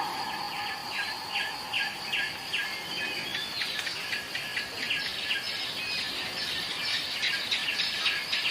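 Birds chirping in quick repeated notes, about two to three a second at first and then faster and overlapping, over a steady high insect drone.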